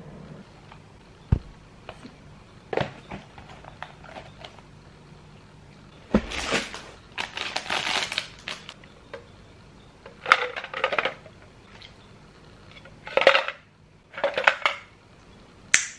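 Packed souvenirs and their packaging being handled: a sharp knock just over a second in, then several bursts of rustling, crinkling and clattering as items are pulled out and moved around.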